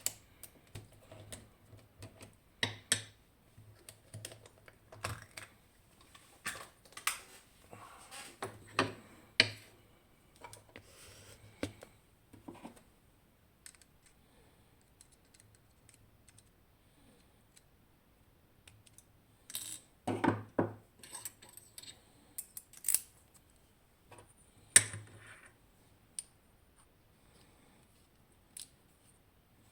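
Irregular small metallic clicks, taps and clatters as a Nemef NF2 pin-tumbler lock cylinder is taken apart by hand. There is a quieter stretch in the middle, then a few louder knocks.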